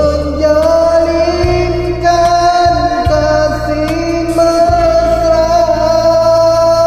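Karaoke singing of a Malay ballad over its backing track: the singer slides up into one long held note and sustains it.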